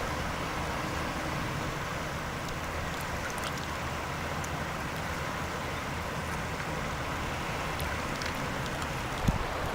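Steady rush of river water, with a single knock about nine seconds in.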